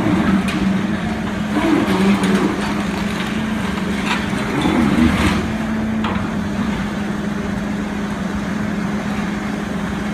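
Demolition excavator working its jaw attachment on a building: a steady drone from the machine with swells as it works, and a few sharp cracks and crunches of breaking debris.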